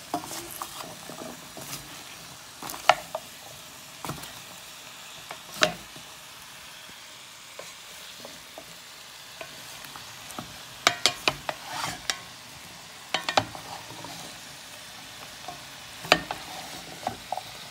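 Wooden spoon stirring chunks of carrot, onion and oxtail in an enamelled cast-iron casserole, with sharp knocks and clatters against the pot, several bunched together about two-thirds of the way through. Under it runs the steady sizzle of the meat browning in the hot pot.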